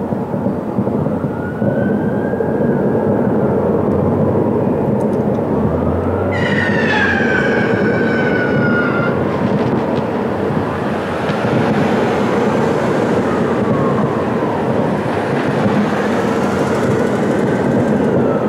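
A siren wailing slowly up and down, several times, over a loud steady din. About six seconds in, a shrill whistle starts sharply and slides down in pitch for about three seconds.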